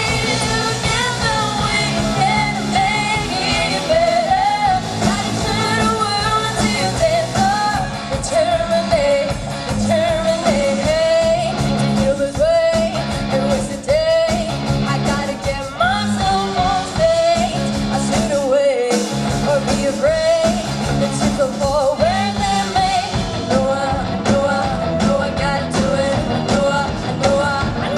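A live rock band playing, with a lead singer's voice over a steady drum beat and band backing; the band breaks off briefly about two-thirds of the way through.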